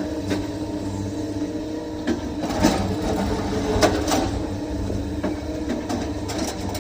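SANY excavator's diesel engine running steadily under load, with a few sharp clanks in the middle.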